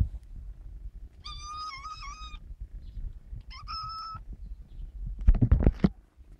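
Tabby kitten meowing twice, in high thin calls: a longer one about a second in and a shorter one about three and a half seconds in. Near the end comes a brief, louder rough rustle.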